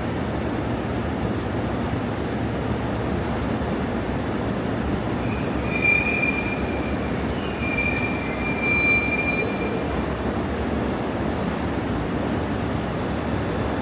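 London Underground train running with a steady rumble, its wheels squealing in two high-pitched stretches about halfway through.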